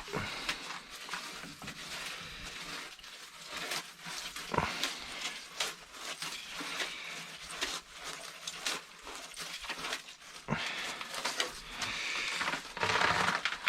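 A freshly caught burbot thrashing and flopping, making irregular scraping and rustling noises with a few sharper knocks.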